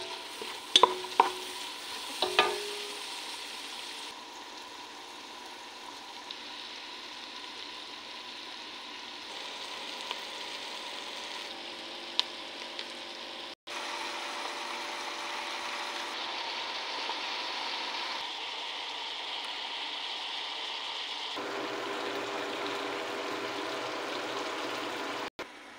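Sliced onions and vegetables frying in oil in a pot, a steady sizzle that shifts abruptly at several edit cuts. A few sharp knocks of the wooden spatula against the pot come in the first few seconds.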